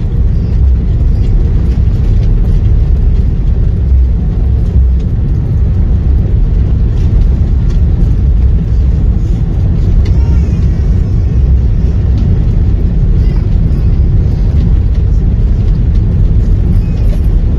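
Loud steady low rumble of engine and airflow noise inside the cabin of an Airbus A330-300 airliner during its landing.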